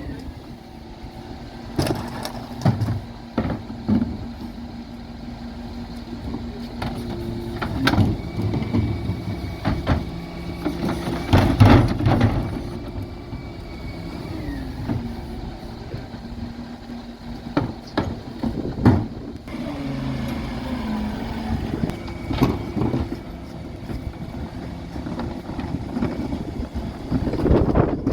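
Dennis Elite 6 refuse truck working a bin collection: engine and hydraulic drive running with a steady hum while the Terberg bin lift cycles. Wheelie bins bang and knock repeatedly as they are lifted and emptied, loudest about halfway through, and a falling whine comes later as the lift comes down.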